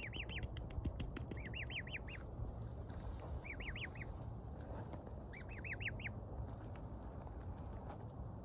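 Gosling peeping: several short runs of three to five quick, high peeps, coming about every one and a half to two seconds.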